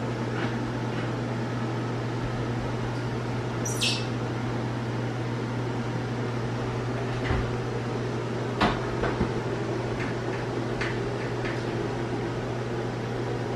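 A microwave oven being set onto its shelf and slid into a cabinet opening: a short high squeak about four seconds in, then a few light knocks and clicks, over a steady low hum.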